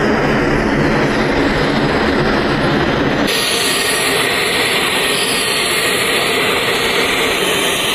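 Loud, steady military aircraft noise, with an abrupt change a little over three seconds in to a hissier aircraft sound.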